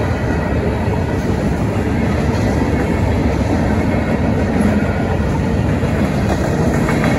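Freight train cars (covered hoppers and tank cars) rolling steadily past a grade crossing, a continuous low-heavy noise of steel wheels on the rails.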